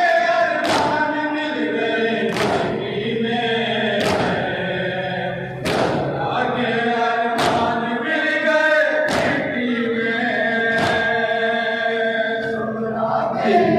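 Men chanting a noha, a Shia mourning lament, in unison, with loud collective chest-beating (matam) slaps landing together in time, about one every second and a half or so.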